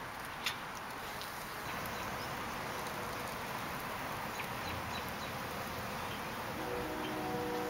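Outdoor garden ambience: a steady hiss of wind with faint buzzing of bees near the water. Near the end, a few sustained ringing tones come in, like a chime.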